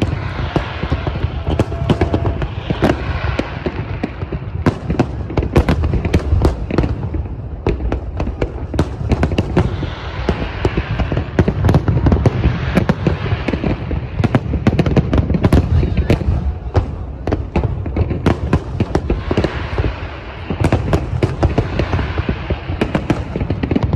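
Aerial fireworks shells bursting in rapid, overlapping bangs and crackles over a continuous low rumble, a dense barrage from a large display.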